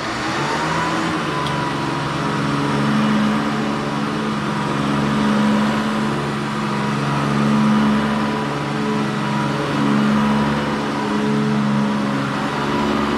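Hoover Decade 800 Heavy Duty upright vacuum cleaner switched on, its motor whine rising in pitch and settling within about a second, then running steadily and loud on the shag height setting, the level swelling and easing every few seconds.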